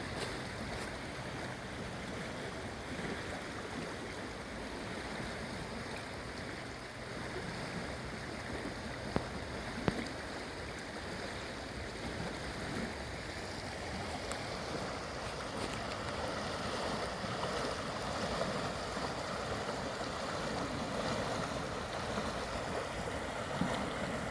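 Flooded creek's fast water rushing in a steady, even roar-free rush, a little louder in the second half, with a couple of faint knocks near the middle.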